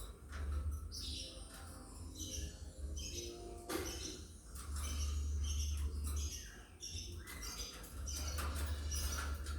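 A flock of lovebirds chirping, many short, quick chirps overlapping one another, with a low hum that cuts in and out in stretches of a second or more and a sharp click a little under four seconds in.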